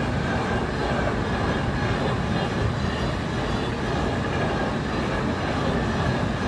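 Freight train of enclosed double-deck car-carrier wagons passing at steady speed: a continuous rumble and rattle of wagon wheels on the rails.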